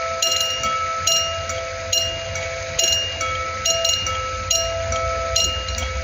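Several level-crossing warning bells ringing at once, out of step with each other, each repeating its ding about once a second so that the strikes overlap in a jumbled, orchestra-like chime.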